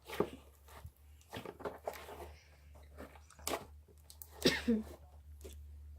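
Slime with foam beads mixed in being squeezed and kneaded by hand, giving irregular sticky clicks, pops and crackles.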